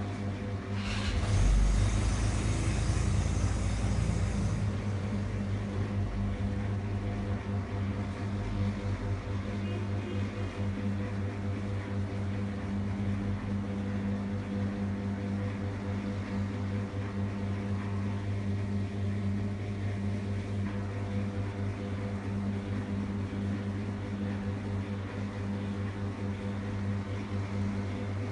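Steady low mechanical hum with a constant pitch. A louder rushing noise comes in about a second in and fades out after a few seconds.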